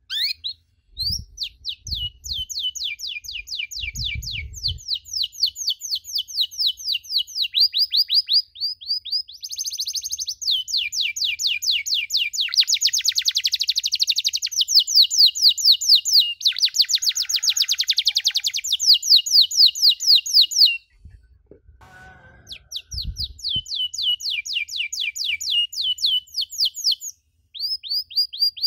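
Domestic canary singing in the rapid 'cuit cuit' chirping style: long runs of fast, evenly repeated high chirps and trills. The song breaks off for about two seconds a little past two-thirds of the way through, then starts again.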